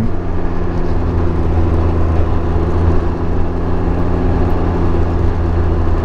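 Can-Am Ryker 900's three-cylinder engine running steadily at a low cruising speed, heard from the rider's seat.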